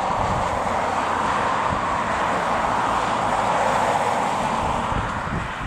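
Boeing 747-8F's four GEnx turbofans running at taxi power: a steady jet hiss. Wind buffets the microphone underneath.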